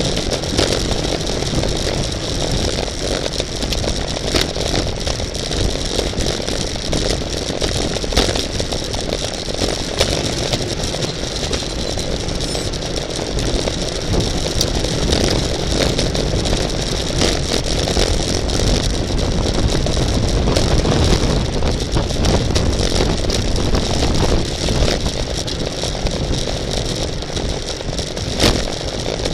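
Steady wind noise on the microphone of a camera moving through a bicycle race, with road rumble and scattered sharp clicks and knocks.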